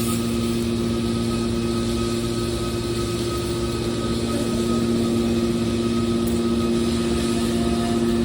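An aluminum can baler's motor and pump running with a steady hum.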